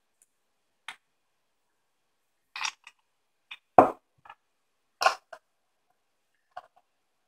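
Small metal clicks and taps from a rebuildable dripping atomizer (RDA) being handled and screwed onto an ohm reader's connector, about eight in all with the sharpest knock a little under four seconds in.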